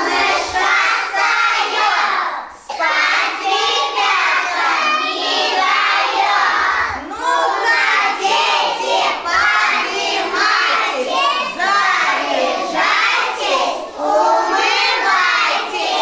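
A group of young children singing together in unison, a song or rhyme carried on without a break.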